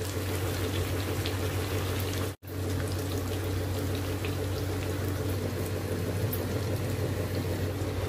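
Butter simmering in a kadhai as it clarifies into ghee: a steady bubbling and fine crackling from the frothing butter, over a low steady hum. This is the foaming stage, before the ghee turns clear. The sound cuts out for an instant about two and a half seconds in.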